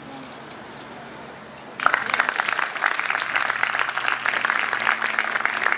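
Audience applause breaking out suddenly about two seconds in and going on steadily: many hands clapping.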